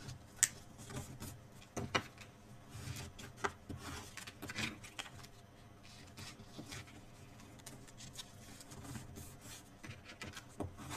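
Cardstock pieces being handled on a craft table: scattered light rustles, taps and scrapes at irregular intervals.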